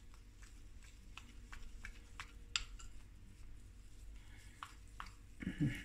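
A metal teaspoon stirring thick icing (icing sugar and orange juice) in a small glass bowl: faint, irregular clicks and light scrapes of the spoon against the glass.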